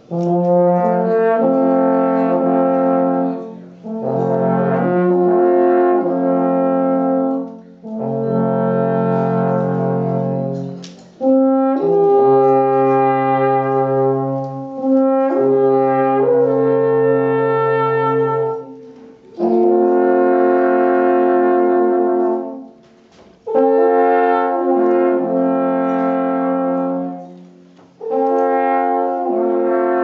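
Three alphorns playing together in harmony, holding long notes in phrases of three to four seconds with short breaks between them.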